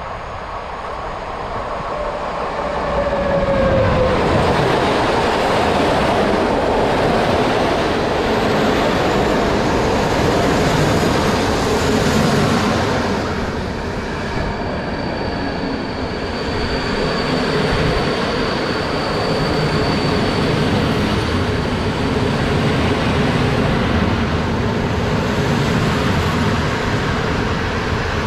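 A train passes close by at speed: it builds up over the first few seconds with a tone dropping in pitch as it comes level, then runs by with a steady rumble of wheels and cars for over twenty seconds. A thin high squeal sounds for several seconds about halfway through.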